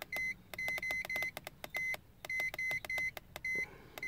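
Handheld iCarSoft i980 scan tool giving a short, high key-press beep each time its down-arrow button is pressed. About a dozen beeps come in quick, uneven succession as it steps through its system list.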